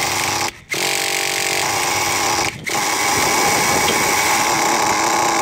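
Traxxas T-Maxx nitro RC truck's small glow-fuel engine running steadily at a high-pitched buzz during break-in, set rich so it spits out excess fuel. The sound breaks off twice for a split second.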